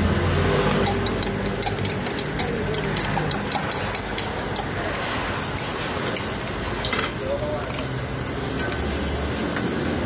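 Flaky scallion pancakes frying on a street-stall flat iron griddle: a soft sizzle with frequent sharp clicks and scrapes of metal tongs on the griddle, over a steady low rumble.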